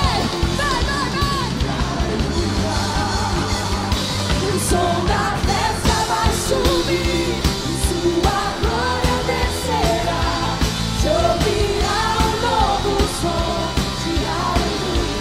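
Live contemporary worship music: women singing into microphones over a full band with drums and bass.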